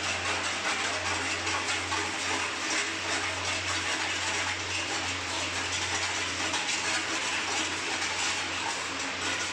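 Steady, even hiss with a low, constant hum underneath: continuous kitchen background noise while sugar and water sit in a steel pan on the stove.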